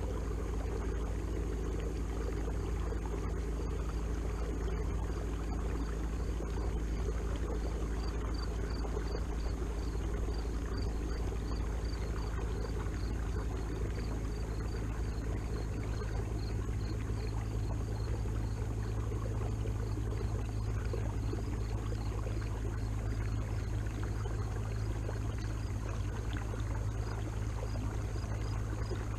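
Watersnake T24 electric trolling motor running steadily, a low hum with several steady tones, its low note growing a little stronger about two-thirds of the way through, over the wash of water along the kayak's hull.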